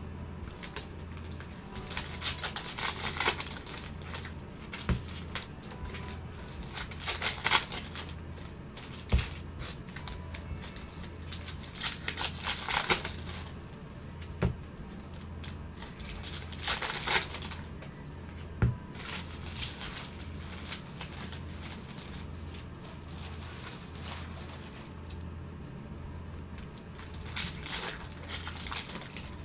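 Foil wrappers of baseball card packs being torn open and crinkled by hand, in repeated bursts of rustling, with a few light knocks of cards against the table in between.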